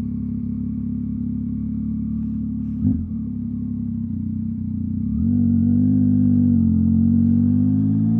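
Yamaha MT-09's inline three-cylinder engine running on the move, heard through an exhaust with its silencer insert taken out. About five seconds in it gets louder as the throttle opens, its pitch rising a little and holding.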